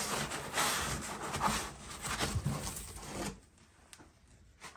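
Foam packing insert being lifted out of a cardboard box, rubbing and scraping against the cardboard for about three seconds with a few light knocks, then quiet apart from one short click near the end.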